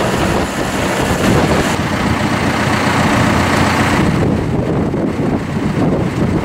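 2013 John Deere 5085E tractor's four-cylinder turbocharged diesel engine running steadily.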